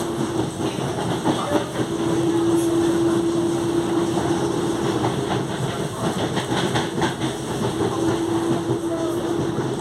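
Traction motor of a CPTM Série 8000 electric train droning with a steady tone, heard inside passenger car 8114 over the rumble and clatter of the wheels on the track; the tone drops out briefly about a second in and weakens for a moment near the middle.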